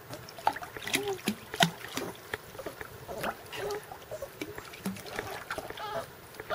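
Five-week-old Weimaraner puppy paddling in a pool: irregular small splashes and drips of water, with a few short, squeaky whimpers from the puppy.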